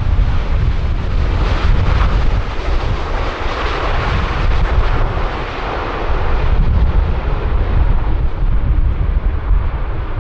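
Boeing 747-8F's GEnx turbofans running as a broad jet roar, strongest a few seconds in and easing toward the end, over heavy wind rumble on the microphone.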